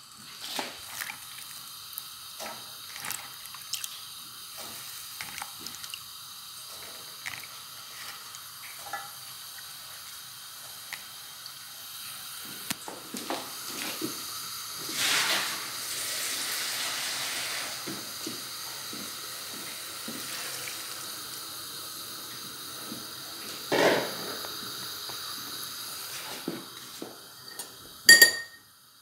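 Kitchen sounds of vegetables being rinsed and cooked: water sloshing and running, with many small clinks and knocks of cut stems and metal pots. A louder stretch of rushing water comes about halfway through, and there are sharp knocks later on, the last a spoon clinking near the end.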